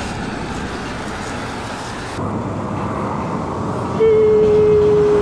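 Road traffic noise at a roadside, with passing vehicles. About four seconds in, a loud, steady single tone starts and holds for about a second and a half, falling slightly in pitch.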